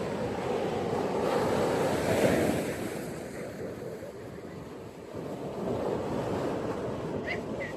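Ocean surf washing onto a beach: a wave swells to a peak about two seconds in and drains away, and the next starts building about five seconds in. Two brief, faint high chirps come near the end.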